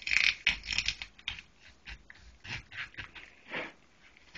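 Kitchen knife cutting through a raw whole chicken, in a run of short irregular scraping and crunching strokes, loudest in the first second.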